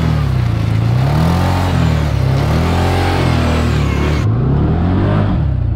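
Can-Am Commander XT 1000R side-by-side's V-twin engine revving up and down repeatedly while it drifts through snow, the pitch rising and falling about once a second.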